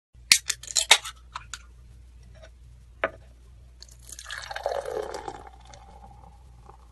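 A quick run of sharp clicks and clinks, then from about four seconds in liquid pouring and splashing into a vessel as it fills, its note settling into a steady tone before it stops.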